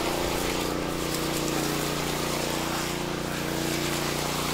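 An engine running at a steady speed.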